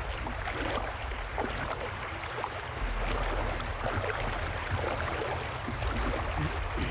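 Muddy floodwater rushing along a flooded track, heard through a mobile phone's microphone as a steady rushing noise. A low rumble grows stronger about three seconds in.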